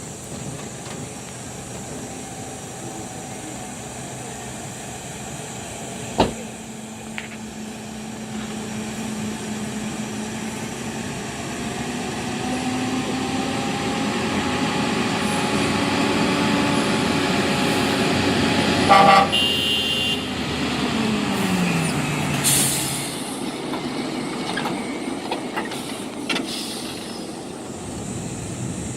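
Diesel engine of a Mercedes-Benz Actros 4043 logging truck running under load and growing steadily louder, with a short horn toot about nineteen seconds in. A couple of seconds later the engine note drops in pitch. A single sharp knock comes about six seconds in.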